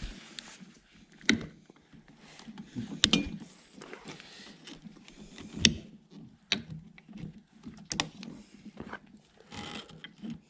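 Irregular clicks, taps and knocks of tools and metal hardware being handled while a trolling motor is taken apart.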